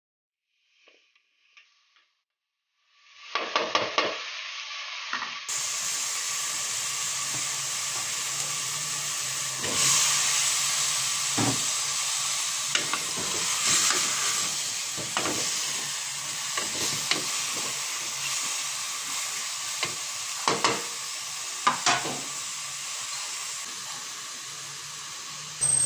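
Pork and jackfruit chunks sizzling as they fry in a metal pot, with scattered knocks and scrapes of a wooden spatula stirring against the pot. The sizzling starts after about three seconds of near silence.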